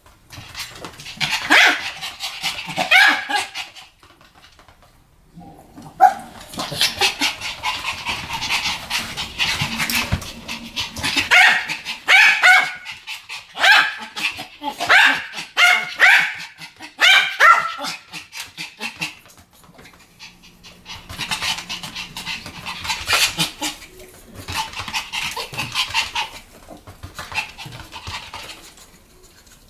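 Two Pomeranians barking together in rapid, high-pitched yaps. The barking comes in three runs: a short one near the start, a long dense one through the middle, and another near the end, with brief pauses between.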